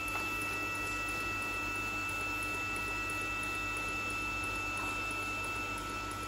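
Pulsed TIG welding arc on stainless steel burning steadily: a continuous even hiss over a low hum, with a thin high tone that drops out near the end.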